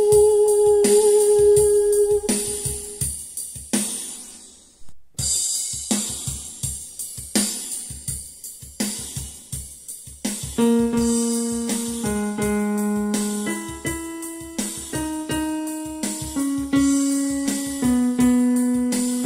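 A singer's held note with vibrato ends about two seconds in, over a backing track with a steady drum beat. After a brief drop about five seconds in, a keyboard accompaniment with drums plays the warm-up's stepwise melody without a voice, for the listener to sing along.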